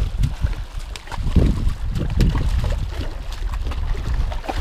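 Seawater sloshing and splashing against breakwater rocks, with wind buffeting the microphone.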